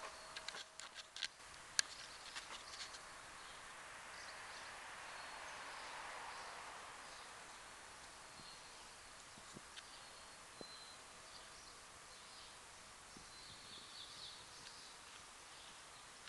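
Quiet outdoor background noise with a few short, faint high bird chirps, and a cluster of small clicks and rustles in the first few seconds.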